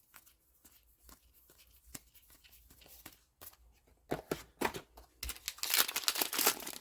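Trading cards handled and flipped with light clicks and snaps, then a booster pack's foil wrapper crinkling and tearing open during the last second and a half, the loudest sound here.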